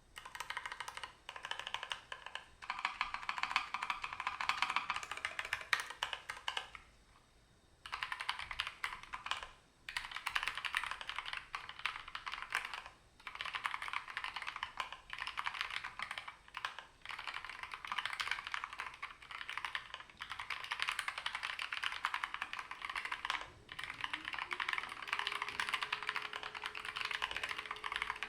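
Typing on a Keychron K3 Pro low-profile mechanical keyboard with Gateron Red linear switches: fast runs of key clacks broken by short gaps, with a longer pause about seven seconds in. A faint steady tone slides in and holds near the end.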